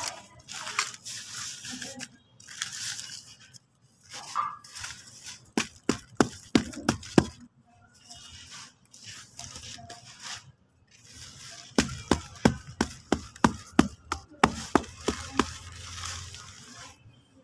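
A hand patting and pressing damp sand-and-cement mix on a plastic sheet: a series of sharp, crunchy slaps, about three a second, in a short run near the middle and a longer run in the second half.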